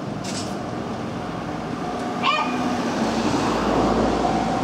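A Nambu Line train approaching a level crossing: a low rumble and rush of noise swells through the second half while the crossing alarm's steady high tone comes in. A short yelp sounds about halfway.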